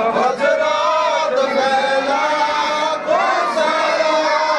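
Male voices chanting zikr, an unbroken melodic chant with long held and gliding notes.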